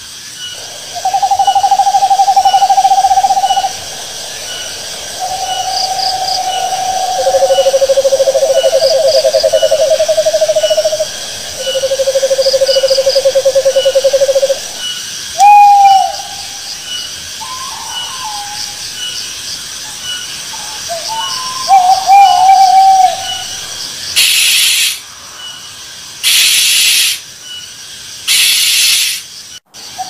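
Owl calls: long trilled notes, each two to three seconds, at several slightly different pitches, then shorter wavering notes, over steady cricket chirping. Near the end come three loud harsh hissing bursts about a second each.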